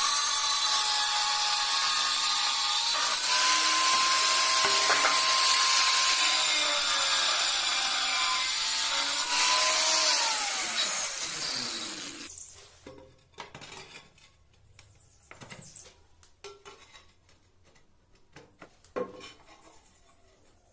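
Bosch angle grinder with a cutting disc grinding through a ceramic tile to cut a notch: a loud, steady whining grind. About ten seconds in it is switched off and its whine falls in pitch as the disc spins down, followed by a few faint knocks and one sharper knock near the end.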